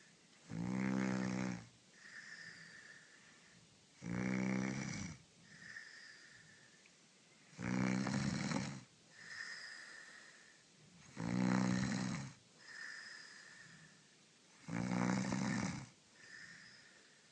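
A woman snoring loudly. Five heavy, rattling snores come about every three and a half seconds, each lasting about a second, with a softer, high-pitched breath between them.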